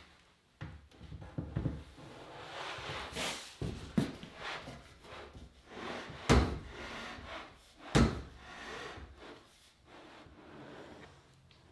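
A white AZEK PVC box being slid over a wooden 4x4 post to test the fit after the post was planed thinner on two sides: a rubbing scrape broken by several knocks, the loudest two about six and eight seconds in.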